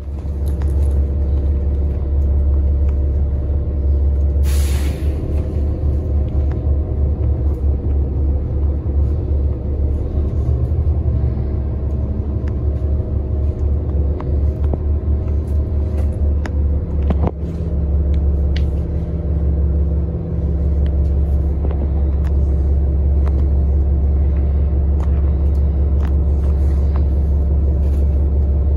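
Cabin sound of a New Flyer Xcelsior XDE60 diesel-electric hybrid articulated bus on the move: a steady low drivetrain rumble under a steady whine. A short hiss comes about four and a half seconds in, and a sharp click comes near the middle.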